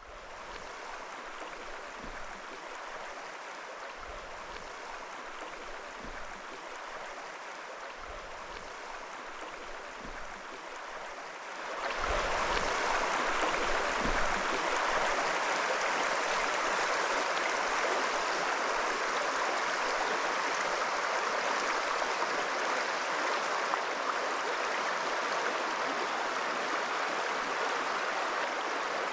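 Steady rush of flowing stream water, growing louder about twelve seconds in, with a few faint low thumps before that.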